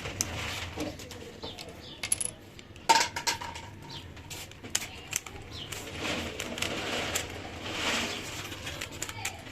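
Plastic puzzle cube being turned by hand: a string of irregular small clicks and clacks as its layers and pieces knock together.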